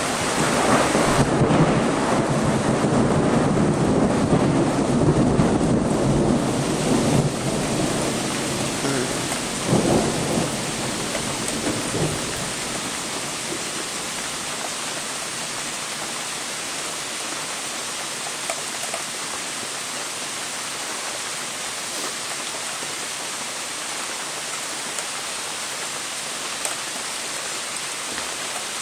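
Thunder rumbling loudly for about twelve seconds just after a lightning strike, with two sharper cracks near its end. Steady rain follows once it dies away.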